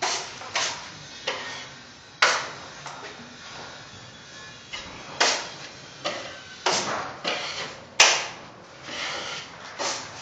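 Drywall taping knife scraping joint compound, in about a dozen short, sharp strokes at an irregular pace, each starting suddenly and trailing off.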